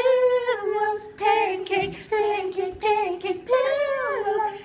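Girls' voices singing a tune a cappella, with long held notes that waver in pitch and a falling glide near the end.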